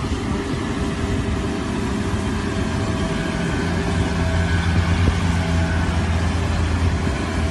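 Loud, steady low drone with a rushing hiss inside the cabin of a Sukhoi Superjet 100 airliner on fire after an emergency landing. A fainter steady hum rises about three seconds in.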